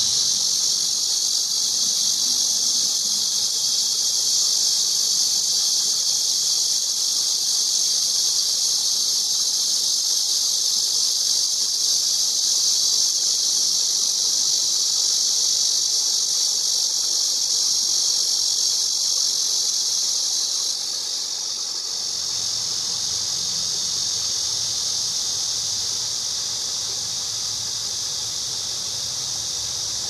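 Cicada buzzing in a steady, high-pitched drone that does not break, easing a little about two-thirds of the way through.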